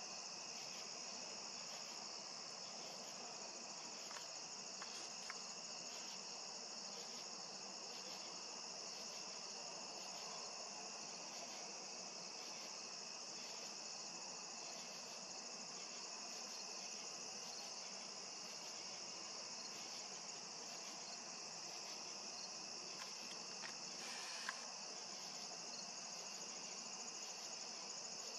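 Steady high-pitched chorus of field insects trilling, with a few faint clicks.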